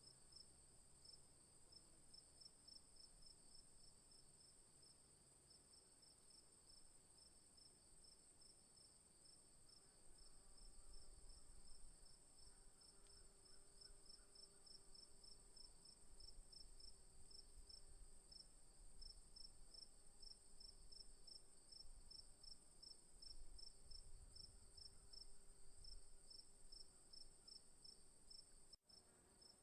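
Faint chorus of night insects in the bush: a steady high-pitched trill over a rapid, evenly pulsing chirp, with a faint low rumble underneath. The sound drops out for an instant near the end.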